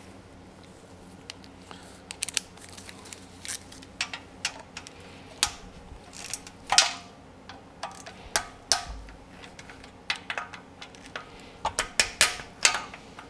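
Hand ratchet and 12 mm socket clicking, with metal tools clinking, as the tight bolts of the oil filter housing on a Honda J30A4 V6 engine block are loosened by hand. Irregular sharp clicks, some in quick runs of several.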